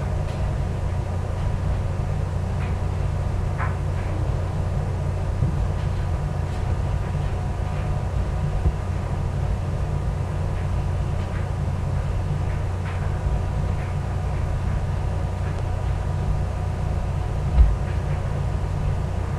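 Steady low hum of background noise, with a few faint clicks and a single dull thump near the end.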